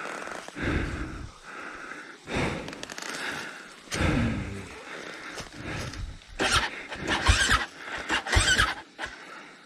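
A worn-out rider breathing hard and straining in short bursts, with scuffing and rustling as the dirt bike is wrestled over rock and dry leaf litter. The loudest bursts come in the last few seconds.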